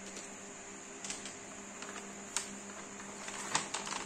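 Clear plastic packaging pouch crinkling and clicking as it is handled, with irregular sharp crackles that come thicker near the end, over a faint steady hum.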